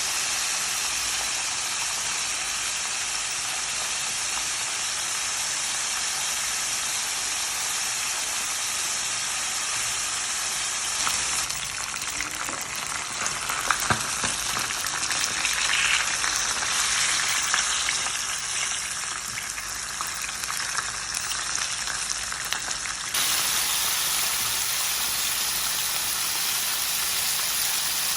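Food frying in hot oil: a steady sizzle, with a few sharp crackles around the middle and an abrupt change in tone near the end.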